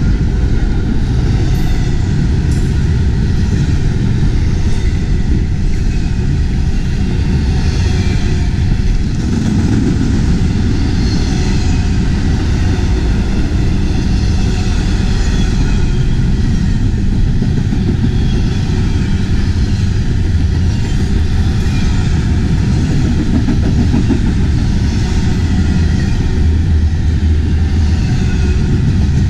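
Double-stack intermodal freight train rolling past: a steady rumble and clatter of steel wheels on rail as the container and trailer cars go by.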